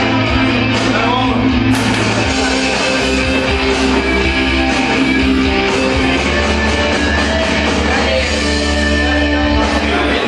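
Rock song with guitar and singing playing for dancing.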